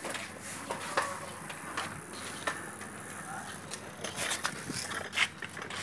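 Children's bicycles with training wheels rolling over a concrete street, with scattered clicks and rattles.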